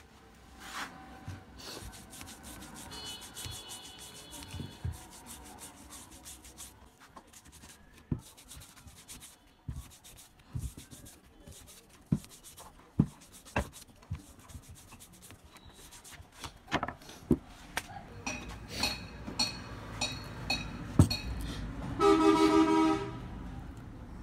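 Small wire brush scrubbing the enamelled copper winding of an alternator, a dry rubbing broken by many sharp clicks and knocks through the middle. Near the end a horn sounds for about a second.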